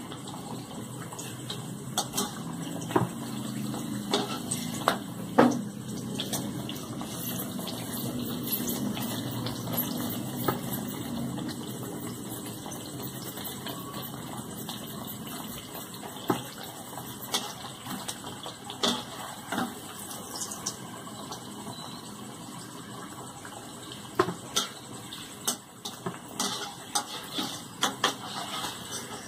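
Dal kachoris deep-frying in hot oil in a metal kadhai, a steady sizzle. Scattered clicks and scrapes of a metal slotted spoon against the pan come more often near the end, as the kachoris are turned.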